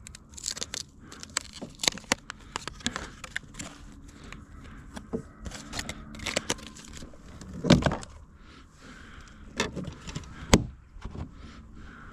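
Fishing tackle being handled while a soft-plastic lure is changed: a run of small clicks, rattles and rustles, with two sharper knocks of hard objects, one about two-thirds through and one near the end.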